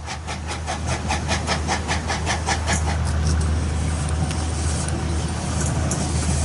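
Steam locomotive working toward the listener: sharp exhaust chuffs at about five a second for the first three seconds, then the chuffing stops and a low rolling rumble grows louder as the train draws near, with a few faint clicks.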